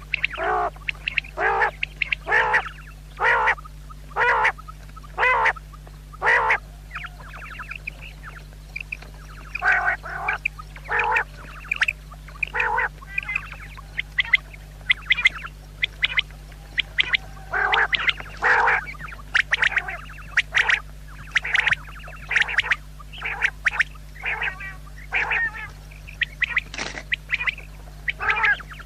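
Common quail calling: short, rough notes repeated about once a second, then after a brief pause in irregular runs, some coming in quick succession.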